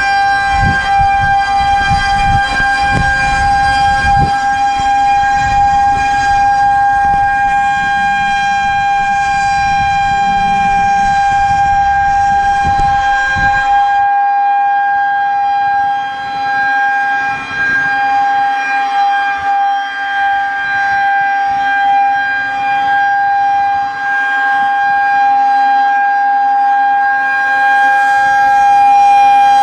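Federal Signal 2001-130 rotating electromechanical outdoor warning siren sounding its steady alert tone, one held pitch that swells and fades as the horn turns. Low rumbling knocks run under it for the first half and stop about halfway through.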